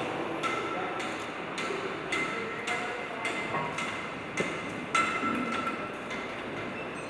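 Engine assembly hall ambience: an even ticking about twice a second over a steady background din of machinery, with a louder metallic knock about five seconds in.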